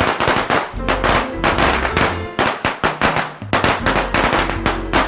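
Background music laid under a string of firecrackers going off, a dense run of sharp irregular pops throughout.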